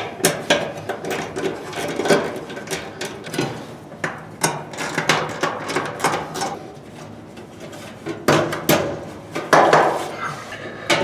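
Tools and metal parts knocking and clicking against a workbench while the screws holding a Maytag dryer's motor mounting bracket are taken out. Irregular knocks run throughout, with a cluster of louder knocks about eight to nine seconds in.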